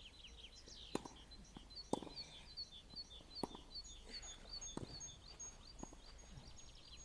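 Small birds chirping, short high notes repeating a few times a second, with a thin steady whistled note above them. A handful of sharp clicks or knocks come through, the loudest about one and two seconds in.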